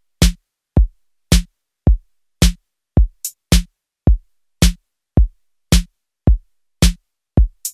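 Background music: a drum-machine beat, each hit a deep kick with a sharp crack on top, at a steady rate of about two hits a second.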